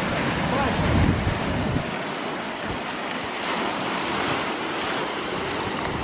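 Sea waves washing and splashing against rocks, a steady rushing surf. Wind buffets the microphone with low rumbles for the first two seconds or so.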